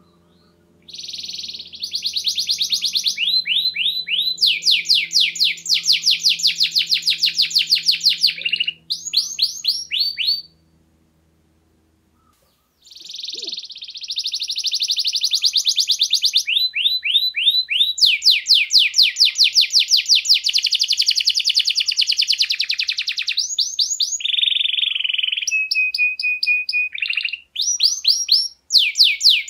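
Domestic canary singing in long phrases of rapid trills, the notes repeating many times a second. The song breaks off for about two seconds near the middle, then runs on, with a short held steady whistle near the end.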